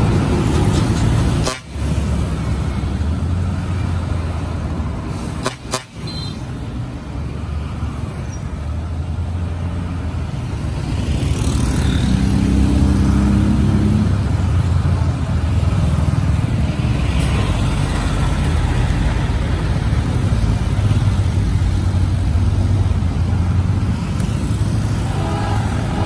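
Road traffic passing close by: the engines of lorries, cars and motorcycles make a steady low rumble, and a vehicle horn toots.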